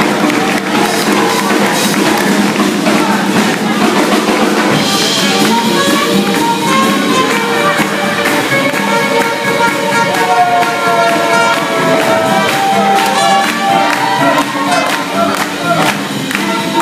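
Live swing band playing dance music, with trumpet lines over archtop guitar.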